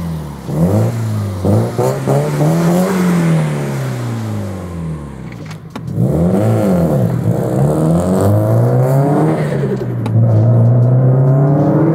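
Turbocharged Subaru boxer four-cylinder engine of an STI-converted Impreza GC, revved up and down several times, then pulling away under hard acceleration with a short dip in revs at a gear change.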